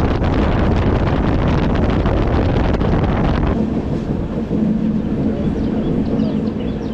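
Wind buffeting the microphone with a heavy rumble. About three and a half seconds in it cuts off abruptly to a quieter background with a steady low hum and faint high chirps.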